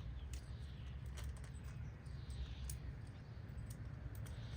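Handling of small parts: a few scattered light clicks over a steady low rumble.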